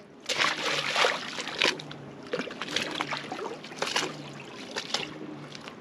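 Water splashing and sloshing in irregular bursts as sharks swirl and snap at bait at the surface.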